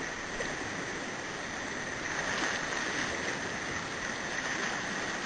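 Steady rushing of whitewater rapids on a river running in very high flow.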